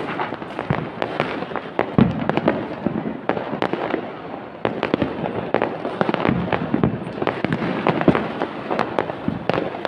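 Many fireworks and firecrackers going off at once: a dense, irregular clatter of bangs and crackles with no break, with sharper bangs about two seconds in and again near the end.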